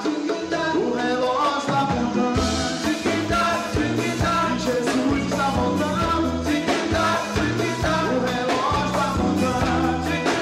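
Band music with a singer over a bass line and a steady drum beat.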